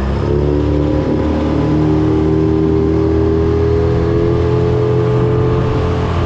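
Small boat's outboard motor running under throttle as the boat gets under way, its pitch climbing in the first second or so and then holding steady.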